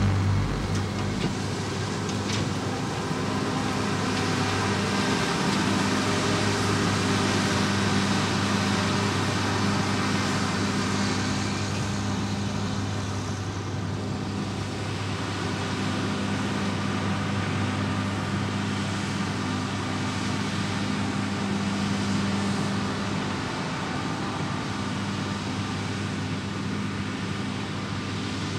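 Diesel engines of a John Deere tractor pulling a grain cart and a John Deere S785i combine harvester running steadily under load, a constant low engine drone with the rush of the combine's machinery over it.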